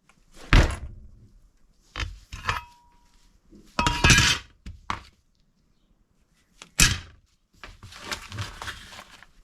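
Hard parts being put down and handled on a workbench: a string of separate knocks and clatters, one with a brief ring after it, then a short spell of rattling near the end.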